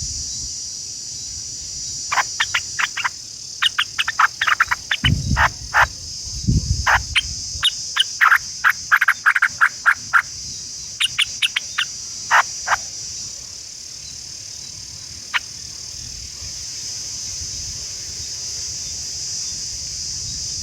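Steady high-pitched drone of insects, with a run of short, sharp chirps coming in quick bursts for several seconds and a few more later. Two brief low sounds come about five and six and a half seconds in.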